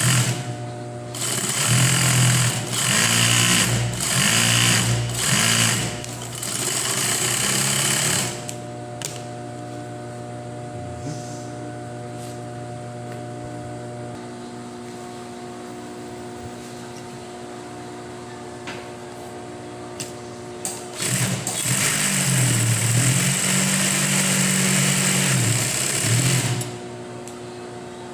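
Juki 5550 single-needle industrial lockstitch sewing machine stitching in several short runs, each speeding up and easing off, then a steady quieter hum for about thirteen seconds, then one longer run of about five seconds. It is sewing a test sample after repair.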